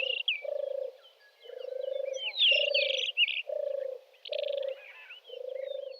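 A frog calling repeatedly, about seven low, pulsed croaks each lasting about half a second. Small birds chirp and twitter at a much higher pitch over the croaks.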